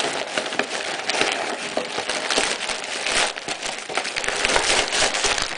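Brown paper packaging crinkling and rustling with many small crackles as hands work a box out of it.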